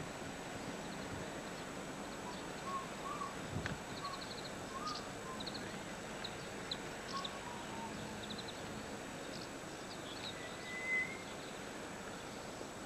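Small birds chirping and trilling in short, scattered calls over a steady hiss. The loudest is a brief high chirp about eleven seconds in.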